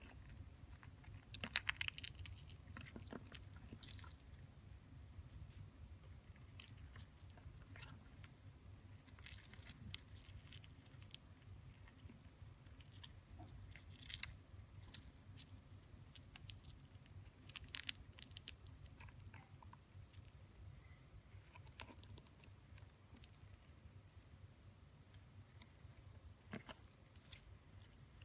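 Faint scattered clicks and crackles over a low steady hum, bunched about two seconds in and again around eighteen seconds in: the beetles' legs and jaws scraping as an African predatory beetle (Anthia fabricii) grips and drags an Elysii ground beetle (Carabus elysii).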